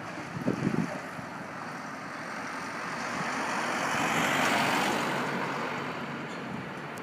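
A Holden ute driving past close by: its engine and tyre noise swell to a peak about four and a half seconds in, then fade away.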